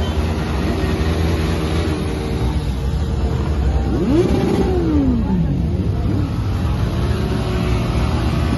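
Sport motorcycle engine revving hard during a rear-tyre burnout. The engine runs loud and steady, rises and falls in pitch about four seconds in, and rises again near the end.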